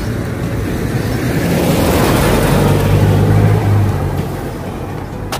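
A motor vehicle driving past close by on the road: engine hum and tyre noise swell to a peak about halfway through and then fade away. A short sharp click sounds near the end.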